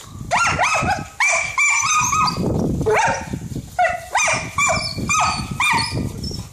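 A kelpie barking in a rapid run of short, high yaps, two or three a second, each dropping in pitch, as it snaps at a lawn sprinkler's spray in play.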